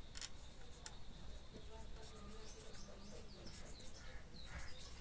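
Green marker squeaking faintly on a whiteboard as Devanagari letters are written, with short high squeaks and light stroke sounds, mostly in the second half.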